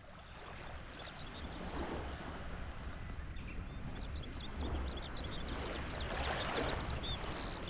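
Sea water washing on the shore, swelling near the end, with wind rumbling on the microphone. Many short, irregular high chirps sound throughout.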